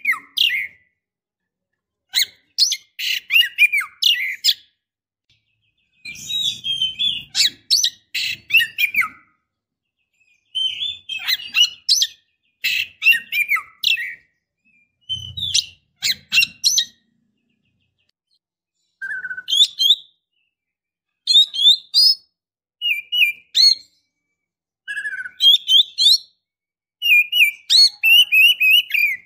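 Female Oriental magpie-robin (kacer) calling in short bursts of quick chirps and twittering phrases, with brief silences between the bursts. These are the calls of a female in breeding condition (birahi) calling to males.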